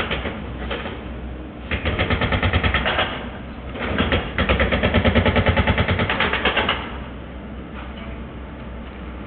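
Demolition machinery knocking rapidly and evenly, about nine blows a second, in two runs of one to two seconds each, over a steady low engine rumble.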